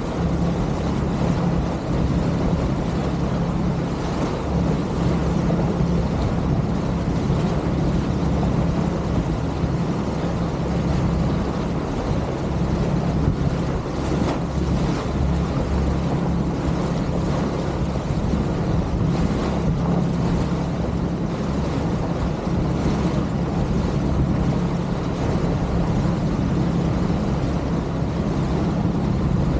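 A motorboat's engine running steadily at a constant pitch, with wind noise on the microphone.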